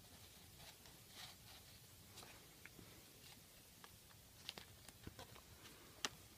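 Near silence: room tone, with a few faint clicks and rustles in the second half from the paper pages of a picture book being handled.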